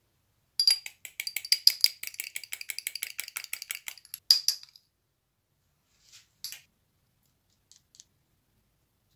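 A metal fork beating egg yolk and sweet paprika in a small glass cup, with rapid clinking against the glass for about four seconds. A few faint soft brushing sounds follow near the end as the egg wash goes onto the pastry.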